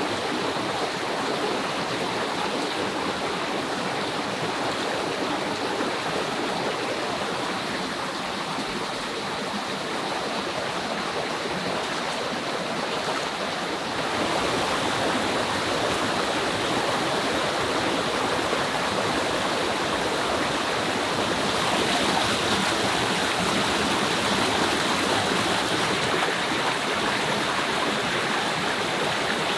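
Shallow rocky forest stream rushing steadily over stones, a little louder from about halfway.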